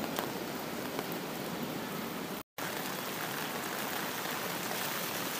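Rain falling steadily, an even hiss. The sound cuts out completely for a split second about halfway through.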